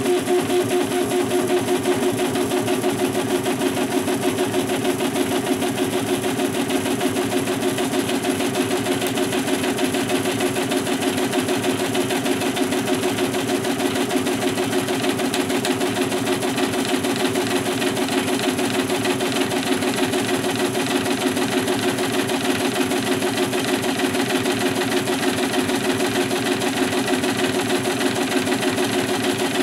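A 3D printer's stepper motors whine steadily while the print head lays down a part: a pitched hum with a fast flutter.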